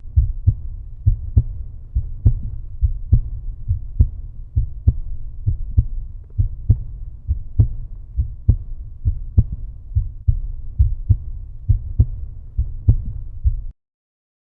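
Outro music: a loud, bass-heavy beat of low thumps, about two a second, that cuts off suddenly near the end.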